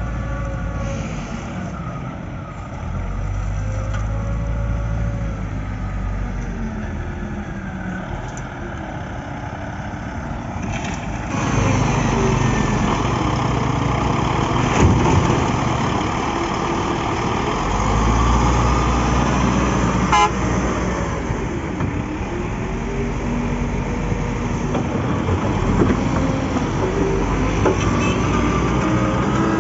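Caterpillar 950B wheel loader's diesel engine running and revving up and down as it works the bucket, loading earth into a dump truck. It gets louder about twelve seconds in, with a few sharp knocks in the second half.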